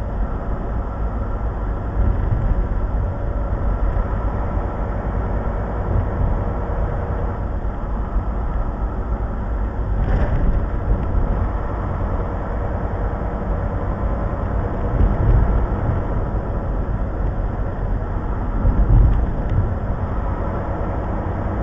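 Steady low engine and road rumble heard inside a truck's cab cruising at highway speed, picked up by the dashcam's microphone.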